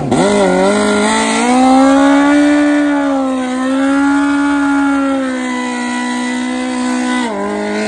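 Engine of a stretched-swingarm Suzuki GSX-R drag bike held at high revs through a burnout, spinning the rear tyre to heat it for the launch. The revs climb in the first second or two, dip briefly about three and a half seconds in, then drop off near the end.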